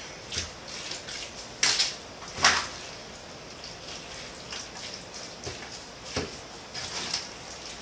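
A spoon stirring shredded cheese into cooked pasta in a pan, with a few scattered clinks and scrapes against the pan. The loudest clinks come about two seconds in.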